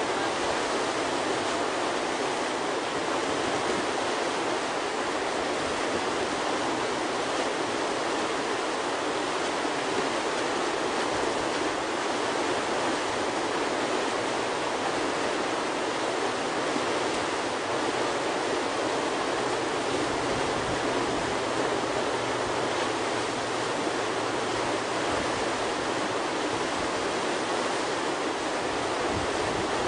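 Whitewater rushing steadily through a river play hole, the breaking standing wave of fast current.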